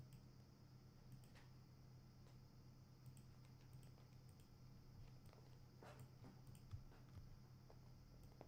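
Near silence: a steady low hum of room tone with a few faint, scattered clicks of a computer mouse.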